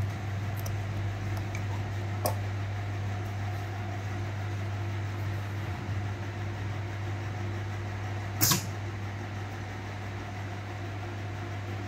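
Steady low electrical hum, with a short sharp click about two seconds in and a louder sharp click about eight and a half seconds in.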